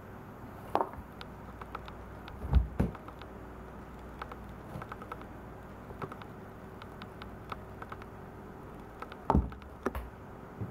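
Cat playing in a clear plastic storage box and batting at a toy mouse on a wand: scattered light taps and clicks of paws and toy against the plastic and floor, with a few louder thumps about two and a half seconds in and again near the end.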